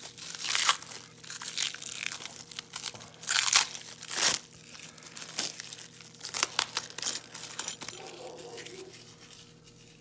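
Plastic wrap crinkling and tearing as it is pulled off a padlock by hand, in irregular crackles that thin out over the last couple of seconds.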